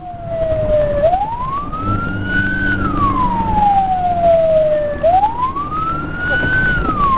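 A wailing siren rising and falling slowly, two full rise-and-fall cycles about four seconds apart, over a low steady hum of traffic.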